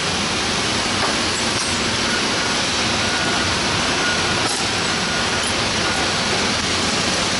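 Steady, loud roar of even noise with no rhythm or pitch: the background din of an industrial shop floor.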